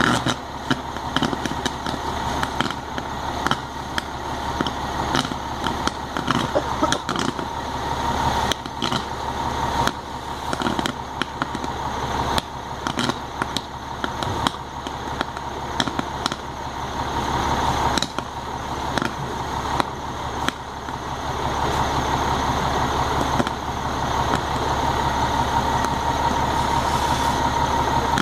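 Crackling and popping from a burning house with downed live power wires arcing, over a steady engine drone. The crackles are dense early on and thin out, while the drone grows louder about three quarters of the way through.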